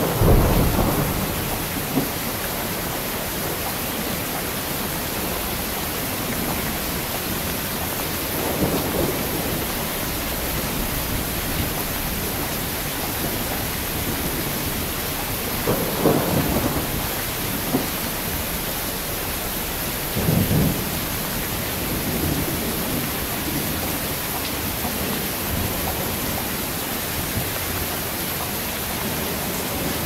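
Heavy rain falling steadily, with several low rumbles of thunder. The loudest rumble comes right at the start, and others follow about 9, 16 and 20 seconds in.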